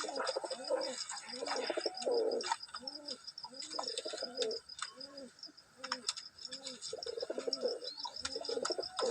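Pigeons cooing, a run of low, arching coos about two a second that overlap as several birds call at once, with a few sharp ticks and a faint high pulsing tone behind them.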